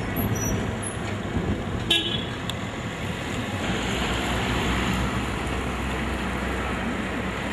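Street traffic: a steady low engine rumble, with a car passing that swells in the middle. A short sharp click with a brief high tone comes about two seconds in.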